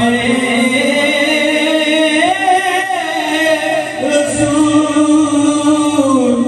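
Devotional singing in the style of a naat, with long held notes that slowly rise and fall.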